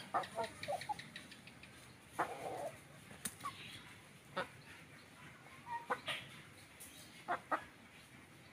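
Free-range village chickens (ayam kampung) clucking in short, scattered calls, with a few sharp clicks between them.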